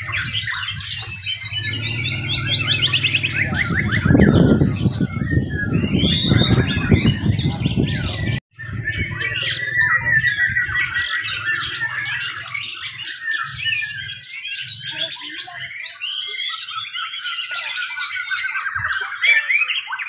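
Several caged white-rumped shamas (murai batu) singing at once: loud, overlapping song full of rapid trills and rattling calls. A low rumble runs beneath the first eight seconds and ends at a brief dropout.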